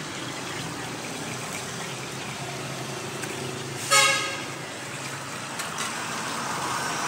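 Steady street traffic noise with a single short vehicle horn honk about four seconds in.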